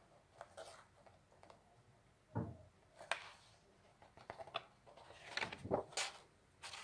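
Pages of a coloring book being handled and turned over: a series of short paper rustles and flaps, with a dull knock a little over two seconds in.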